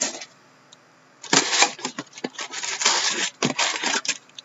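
An O-Pee-Chee Platinum hockey card hobby box being opened and handled, with dense rustling and scraping of cardboard and clicks. It starts after a short quiet about a second in and stops just before the end.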